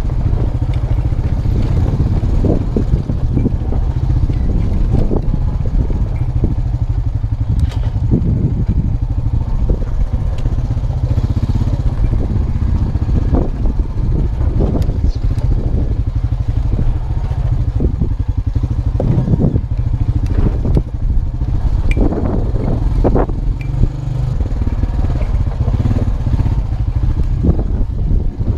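2002 Honda Rancher 350 ATV engine running steadily under way, a constant low drone with irregular clatter and knocks throughout.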